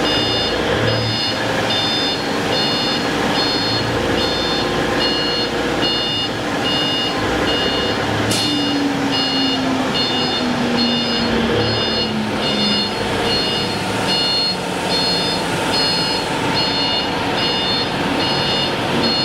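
Electronic warning beeper sounding a repeating multi-tone beep, a little under two beeps a second, over steady machine noise. Partway through, a lower hum slides down in pitch.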